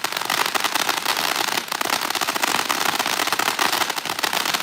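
Master of Sparks firework fountain by Freedom giving off its crackle effect: a dense, continuous stream of rapid pops that is really loud.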